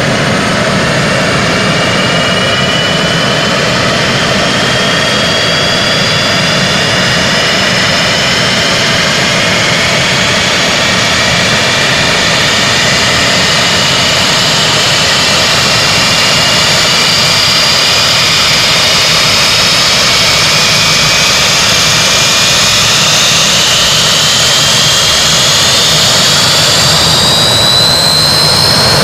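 Antonov An-12's Ivchenko AI-20 turboprop engines running loudly, with a whining turbine tone that rises slowly in pitch and climbs faster near the end as the engines pick up speed.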